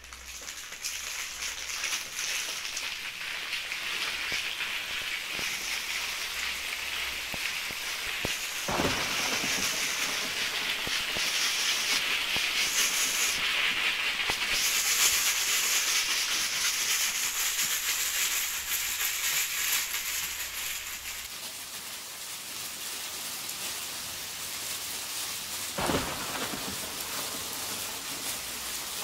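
Steady rain-like hiss that swells to its loudest around the middle and then eases off, with two dull thuds, one about nine seconds in and one near the end.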